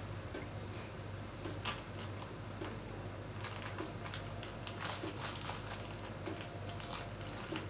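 Pot of coconut-milk curry simmering on a gas burner: small bubbles popping irregularly over a steady hiss and low hum.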